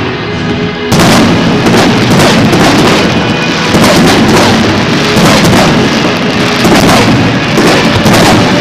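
Aerial fireworks shells bursting in rapid succession with crackling, building into a dense, near-continuous barrage about a second in.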